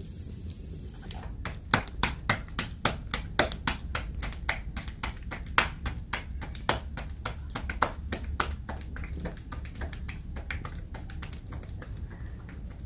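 Flatbread (roti) dough being slapped back and forth between two palms to shape it: a quick, even run of soft slaps, about three a second, growing softer in the last few seconds.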